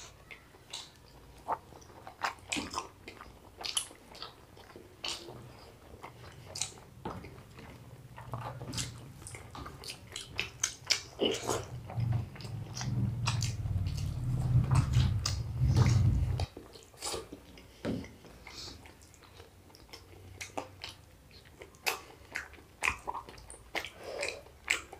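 Close-miked chewing and wet mouth clicks of people eating rice mixed with chicken liver by hand, with a low muffled rumble from about eight to sixteen seconds in.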